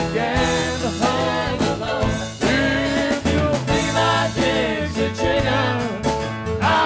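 Live rock band playing: acoustic and electric guitars over keyboards and drums, with a bending melodic line on top.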